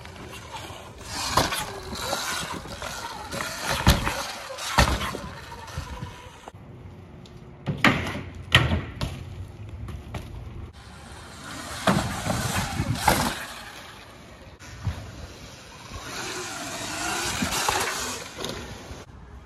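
Bicycles being ridden hard on concrete: tyres rolling, with a series of sharp thuds and clatters as the bikes land and hit the ground.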